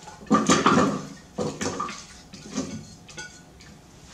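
Garlic, ginger, onion and spring onion pieces tipped off a plate into the empty plastic bowl of a Black+Decker food processor, dropping and sliding in in several short bursts; the loudest come in the first second and the later ones are weaker.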